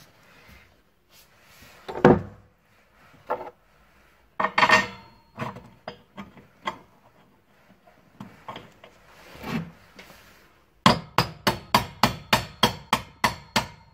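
Hammer driving a steel bolt through a hole drilled in the floor: a few scattered knocks and scrapes, then near the end a quick, even run of sharp hammer strikes, about four a second.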